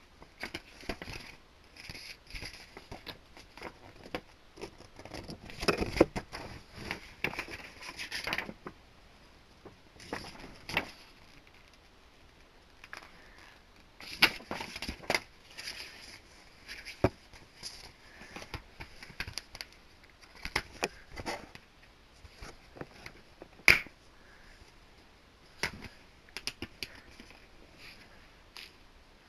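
Irregular handling noises of DVD packaging: clicks, scrapes and crackles coming in busy clusters, with one sharp click about two-thirds of the way through.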